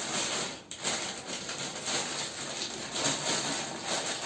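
Rustling and handling noise from tripod packaging and parts being unpacked, an uneven crackle that dips briefly under a second in.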